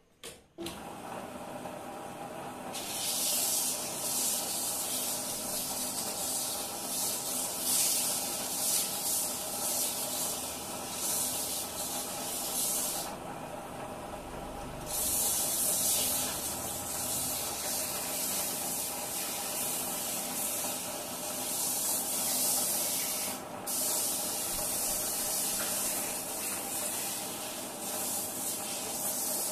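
A lathe running with a steady hum while sandpaper is held against the spinning turned spindle, making a loud hiss. The hiss starts a few seconds in, stops for about two seconds around the middle, then resumes.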